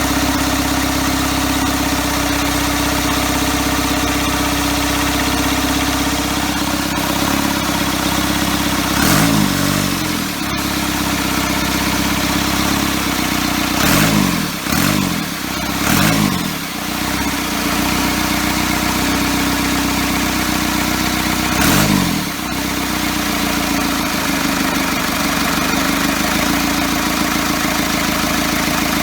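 Cummins diesel engine idling low and steady on a cold start, with four short revs up and back down in the middle.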